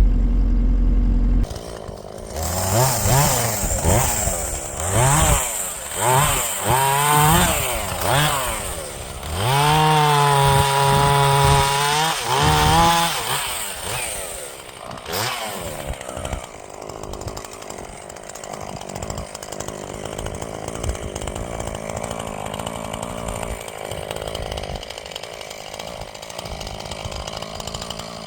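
A loud low engine drone cuts off about a second and a half in. A chainsaw then revs up and down several times in quick pulses, holds a steady high run for a few seconds, and from about halfway on runs steadily and more quietly.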